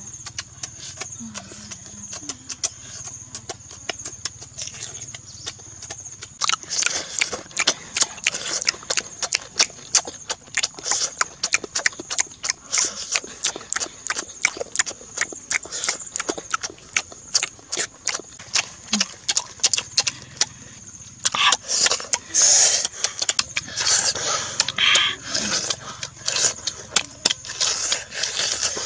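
Close-up eating sounds: a mouth chewing and smacking on cooked egg, as rapid wet clicks that start about six seconds in and grow louder and denser for a few seconds past the middle. A steady high whine runs behind them.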